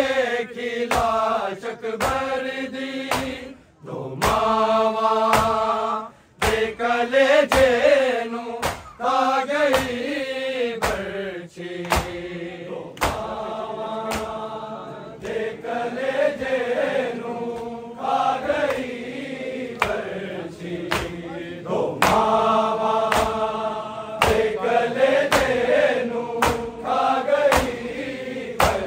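A group of male voices chanting a Punjabi noha (Shia lament) together, long held wailing notes with bending pitch, over regular sharp slaps keeping the beat.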